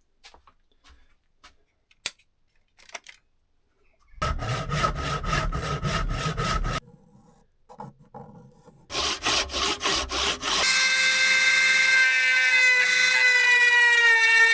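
Rhythmic rasping strokes on wood, about four a second, in two short spells. About two-thirds of the way through, a small power tool's motor starts and runs with a loud, steady high whine.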